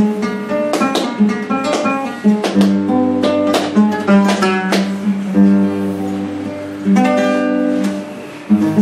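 Flamenco guitar playing the introduction to a serrana. Sharp strummed chords come in the first half, then ringing held chords and single notes from about five seconds in.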